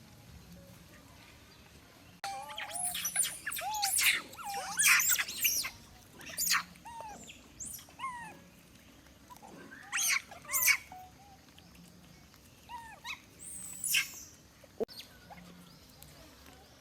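Monkeys giving high-pitched squeals and chirps in bursts: a dense run starting about two seconds in, then shorter bouts around ten and fourteen seconds. A single sharp click comes near the end.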